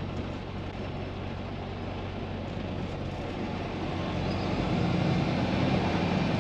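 Freightliner Cascadia semi truck's diesel engine heard from inside the cab, running low and steady as the truck creeps forward pulling a loaded tanker trailer. About four seconds in, the engine note gets louder and a little higher as it pulls away.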